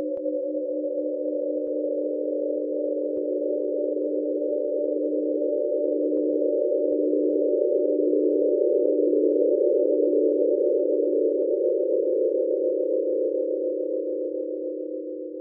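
Eerie background music: a drone of several steady, pure synthesized tones, the lowest one pulsing about once a second, beginning to fade out near the end.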